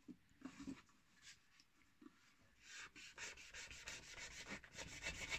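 Crivit folding knife's blade sawing through thick natural-fibre rope: faint at first, then quick, repeated rasping strokes from about halfway through as the fibres are cut. The blade is not very sharp and cuts the rope only with some effort.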